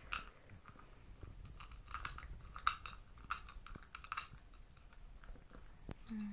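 A small poodle eagerly chewing and crunching its food from a bowl, with irregular crisp crunches several times a second.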